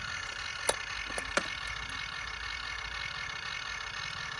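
A model dump truck's motor running steadily, with two sharp clicks about a second in.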